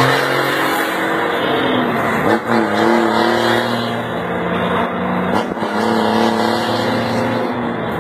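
Ford Cargo truck's diesel engine being revved, with a quick rise in pitch about two seconds in and stretches held at a steady speed, dropping back near the end.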